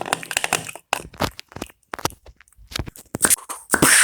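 Popcorn crunching and crackling, a dense run of crackles in the first second followed by scattered sharp clicks.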